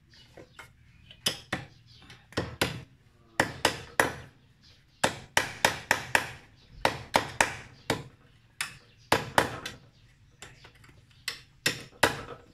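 Hammer tapping in quick runs of two to four blows, fixing a cut piece of tin can onto a hardwood board.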